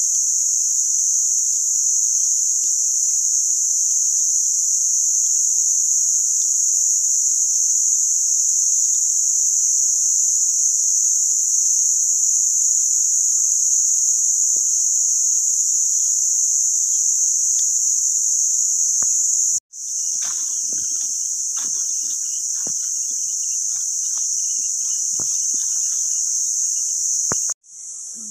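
Steady high-pitched insect chorus. It breaks off for an instant about two-thirds of the way through and again near the end, and is quieter after the second break. In the last third, scattered faint rustles and knocks sound beneath it.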